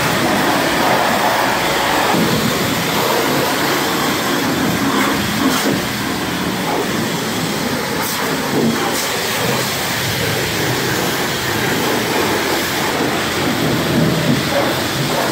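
Pressure-washer wand spraying water onto a snowmobile and its trailer: a loud, steady hiss of spray, with a few brief clicks in the middle.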